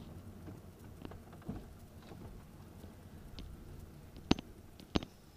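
Car tyre rolling slowly over gritty, cracked asphalt: a low rumble with scattered sharp clicks and pops, the two loudest near the end.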